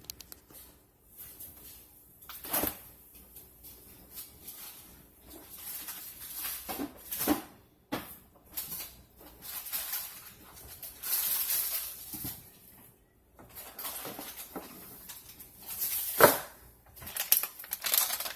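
Kitchen handling noise: scattered knocks and clinks of bowls and containers with stretches of rustling, as granola ingredients are handled. The sharpest knocks fall about two and a half seconds in, around seven seconds, and around sixteen seconds.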